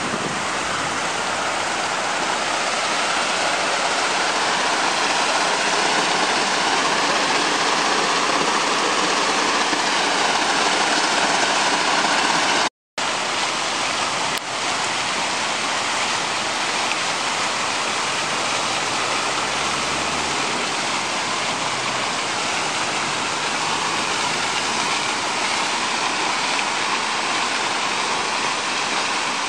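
Fountain jets splashing into a basin: a steady, dense rush of falling water. It cuts out for a split second about halfway through, then carries on.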